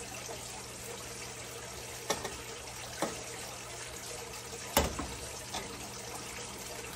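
Wire whisk stirring a milk-and-flour roux in a stainless steel saucepan, with milk poured in from a glass measuring jug around the middle, over a steady low hum. A few light knocks of utensils against the pot, the loudest just before five seconds in.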